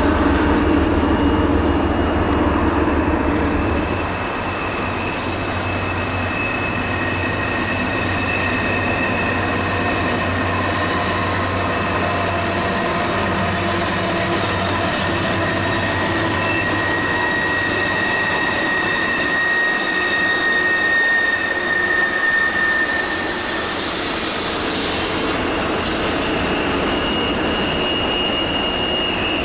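HO-scale diesel-hauled coal train running over a bridge, with steady high-pitched squealing tones over a continuous rumble. A deep low rumble fades about four seconds in.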